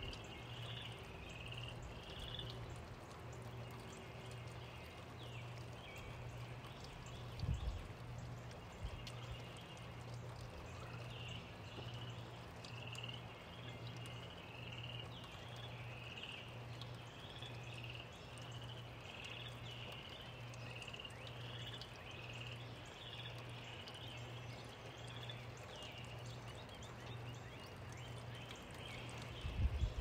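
Steady gentle rain, with short high animal calls repeating in clusters over it and a faint low pulsing hum underneath. A brief low thump about seven seconds in and again near the end.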